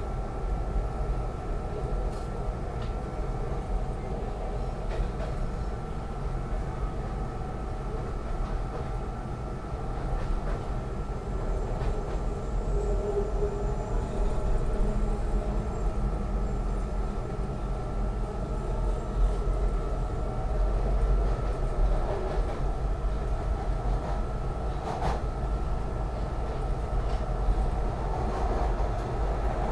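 Inside a Market-Frankford Line M-4 rail car running between stations: a steady rumble of wheels and traction motors under a constant whine, with an occasional click of the wheels over the rails.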